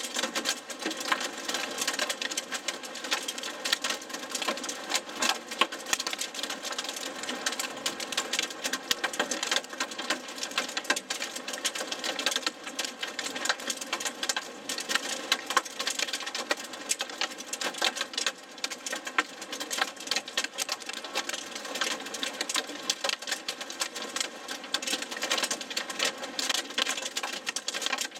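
Rain and hail pelting the car's roof and windshield in a dense, rapid, unbroken clatter, heard from inside the vehicle in a supercell's core.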